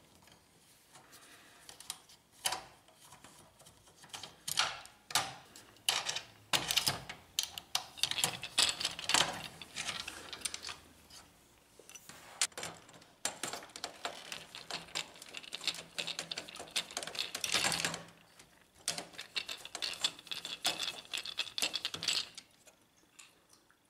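Screwdriver backing out the two screws that hold a laser printer's fuser unit: irregular clicks, short scrapes and small metallic clinks.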